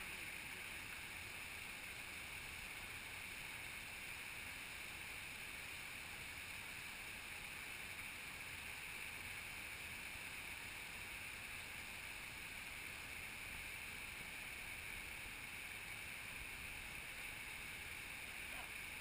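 Steady, faint rushing of flowing river water, even throughout with no distinct events.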